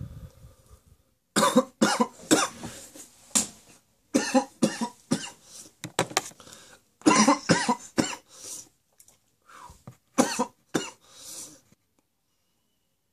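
A man coughing hard and repeatedly, in about five bouts of hacking coughs with short pauses between them, dying away shortly before the end.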